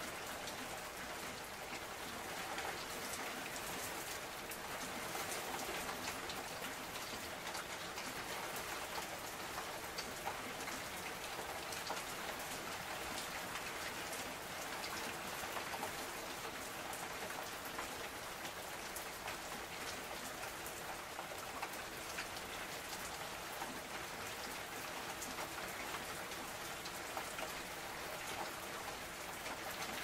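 Steady rain: an even hiss of rainfall with many separate drop hits ticking over it, unchanging in strength.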